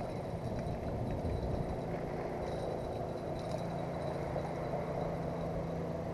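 Steady low hum and rumble of outdoor background noise, unchanging throughout.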